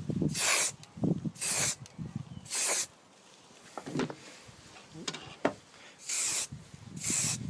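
Aerosol spray paint can hissing in short bursts, about five passes of under half a second each: three close together at the start, then a pause with a couple of light knocks as the model is turned by hand, then two more near the end.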